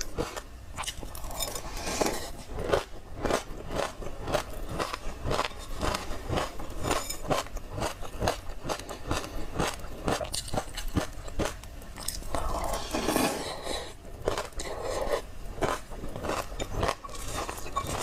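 A person chewing mouthfuls of small crunchy grains mixed with passion fruit pulp: a dense run of quick, crisp crunches that goes on without a break.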